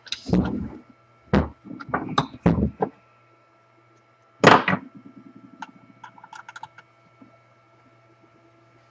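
A series of knocks and clunks from tools and metal saw parts being handled while screws are taken out, with a louder knock about four and a half seconds in followed by a few light ticks. A steady electrical hum runs underneath.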